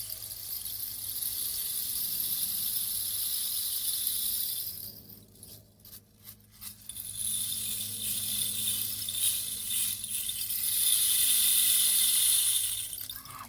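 Rain stick being tipped, its pellets running down inside in a steady rain-like rattle. The flow dies away about five seconds in, with a few clicks as the stick is turned over, then runs again and stops just before the end.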